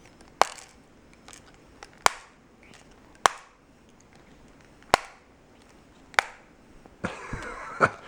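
Five sharp plastic clacks, spaced a second or more apart, as a capuchin monkey works at a TV remote control stripped of its batteries, pulling off the last of its buttons; a rustling starts near the end.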